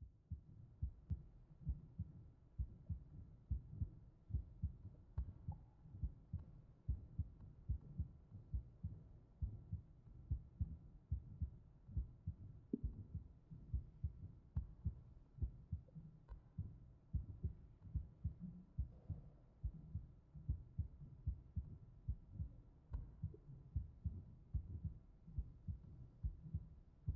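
A steady low thumping pulse, about two beats a second in an even rhythm, much like a heartbeat, with a few faint clicks over it.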